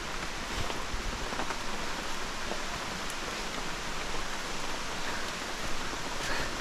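Steady, even hiss of water, rain or running water, with no break or change.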